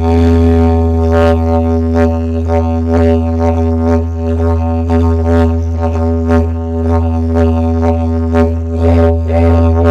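Background music built on a low, unbroken drone with a regular beat over it.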